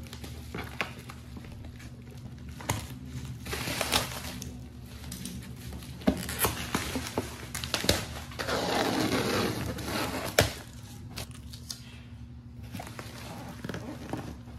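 Black bubble-wrap packaging crinkling and rustling as hands pull a cardboard box out of it, with scattered sharp snaps. About eight seconds in there is a longer stretch of tearing as a strip is peeled off the box.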